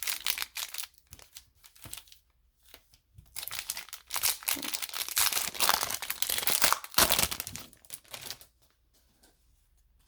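Foil wrapper of a hockey trading-card pack crinkling and tearing as it is opened and handled. It comes in two stretches of crackly rustling: a short one at the start and a longer one from about three seconds in to near the end.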